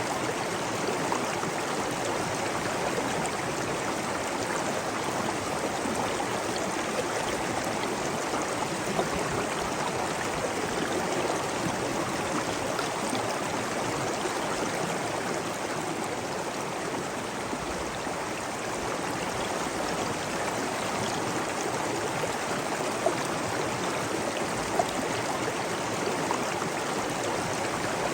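Steady rushing of flowing water from a stream and waterfall, with a few brief splashes standing out.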